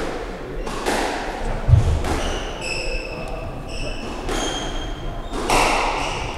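Squash play heard on a neighbouring court, echoing around this court: a dull ball thud about two seconds in, a few high shoe squeaks on the wooden floor, and bursts of hissy noise.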